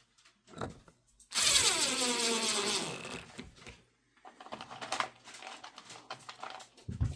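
A power drill runs in a short burst with a hiss, its whine falling steadily in pitch as the motor slows over about a second and a half. Lighter clicks and handling knocks follow, with a thump near the end.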